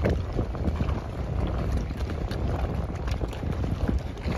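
Wind buffeting the microphone, an uneven low rumble, over the wash of choppy water around the pier pilings and moored boats.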